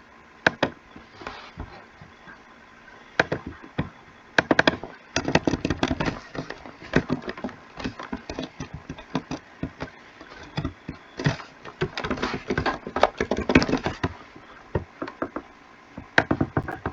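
Irregular clicks and knocks, some single and some in rapid clusters, with no steady tone.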